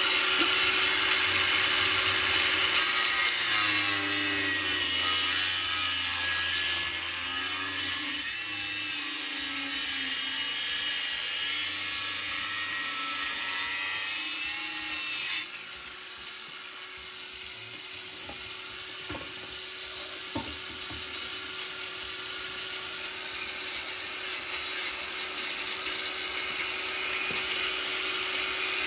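Cordless angle grinder cutting through sheet-steel fender panel: a high motor whine under a harsh rasp of the disc in the metal, the motor's pitch sagging as it loads in the cut. About halfway through the rasp drops away and the grinder runs on more quietly, the whine back up in pitch, with a few light ticks near the end.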